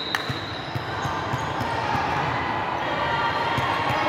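Basketball bouncing on a sports hall floor, a few separate thuds echoing in the hall over low background chatter.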